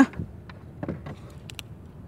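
A few faint clicks and soft knocks of hands handling gear, two sharp ticks about a second and a half in, over a faint steady background.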